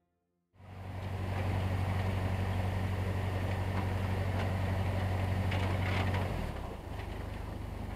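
Narrowboat's diesel engine running steadily while the steel hull breaks through canal ice, with the noise of ice breaking against the hull. It starts abruptly about half a second in, and the engine note changes near the end.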